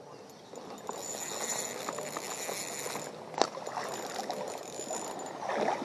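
Spinning reel being cranked steadily to bring in a hooked smallmouth bass, over the steady rush of a shallow stream, with one sharp click about three and a half seconds in.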